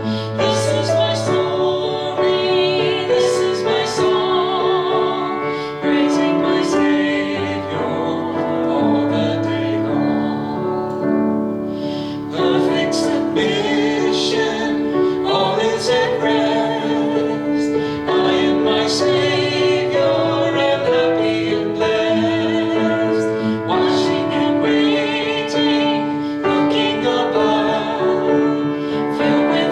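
A worship song: singing with vibrato over piano or keyboard accompaniment.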